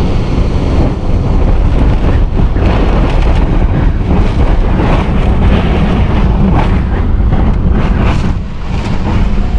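Extreme hurricane eyewall winds blowing against a vehicle: a loud, continuous rush with a heavy low rumble and repeated gusts.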